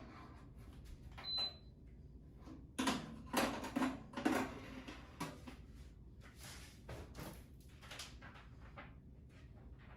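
Knocks and clatter from handling an air-frying toaster oven and its pans and door, busiest a few seconds in, with one short high beep about a second in.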